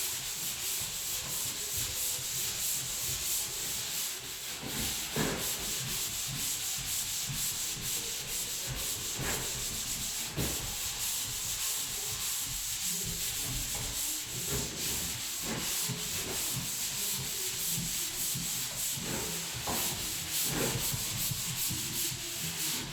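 Dried drywall joint compound over screw heads being sanded by hand: a steady scratchy rubbing of abrasive strokes on the wall.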